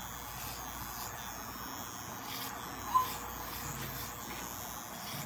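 Corded electric hair clippers buzzing steadily as they cut hair, with a single short high chirp about three seconds in.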